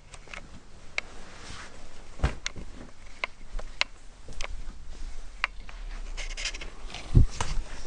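Light clicks, knocks and rustling of a toddler rummaging in a wooden shelf unit of nappies and baskets, with a dull thump a couple of seconds in and a louder one near the end.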